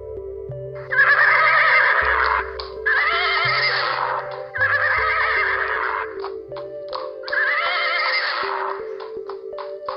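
Horse whinnying four times, each call lasting one to one and a half seconds with a quavering pitch, over soft ambient music with slowly changing bass notes.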